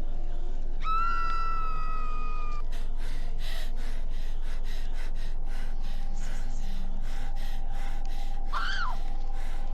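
Horror sound effects: a drawn-out wailing cry, then a rapid run of short noisy pulses, about three a second, like gasping breaths, and a brief rising-and-falling cry near the end, over a steady low hum.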